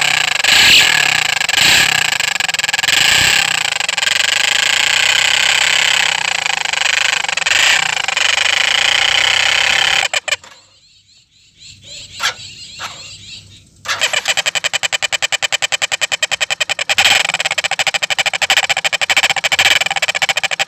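Motorcycle engine running through a modified silencer: a loud, dense exhaust noise that cuts off about ten seconds in. After a few seconds of quiet with a couple of clicks, it starts again as a fast, even pulsing of exhaust beats.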